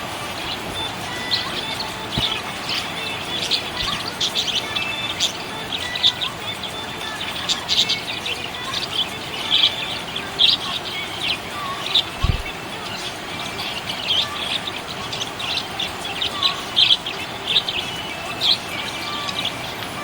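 Small pet parrots chirping: a continuous run of short, high chirps, several a second, over a steady background hiss, with one low thud about twelve seconds in.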